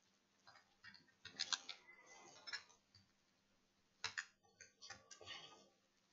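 Faint, irregular small clicks and taps of hand tools and parts on an opened iPhone 6S. They come in short clusters, the loudest group about four seconds in.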